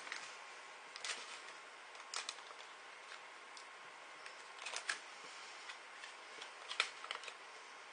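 Popping candy crackling in a mouth: scattered small sharp pops that come in little clusters every second or two, the loudest near the end.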